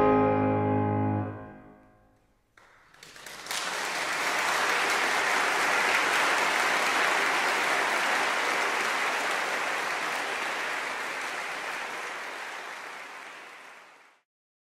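A piano's final chord ringing and fading away over about two seconds; after a short silence the audience applauds, steady for about ten seconds, then the sound cuts off suddenly.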